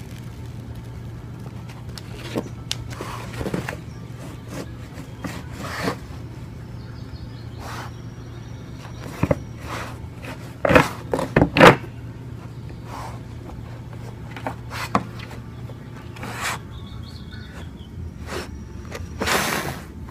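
A dog moving about close to the microphone: scattered short knocks and scuffs, the loudest a quick cluster of them about halfway through, over a steady low hum.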